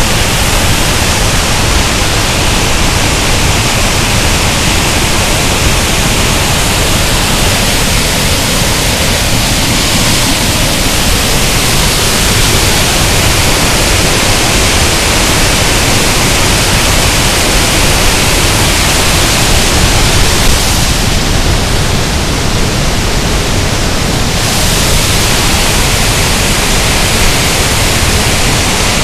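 Waterfall: water pouring and splashing in a loud, steady rush.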